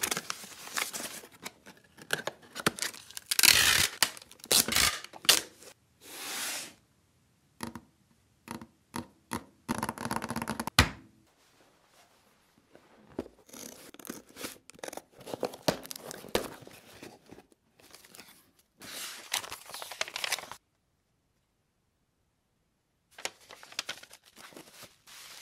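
Cardboard box and paper being handled: a box flap opened, a paper insert pulled out and a folded sheet unfolded, giving irregular bursts of rustling, scraping and crinkling with short pauses between them.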